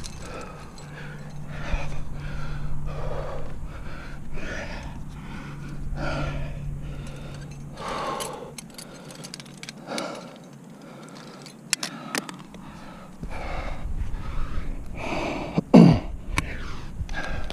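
Climber's heavy, rhythmic breathing under effort on a sustained crack climb, about one loud breath every second. Near the end, one loud short grunt falling in pitch and the clink of climbing gear as a quickdraw is handled.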